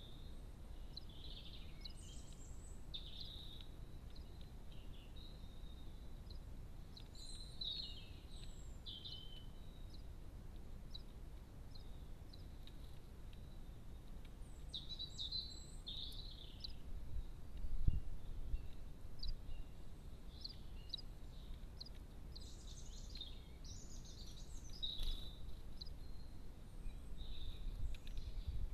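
Small garden birds chirping and calling in short scattered bursts over a steady low rumble of background noise, with a single dull thump about two-thirds of the way through.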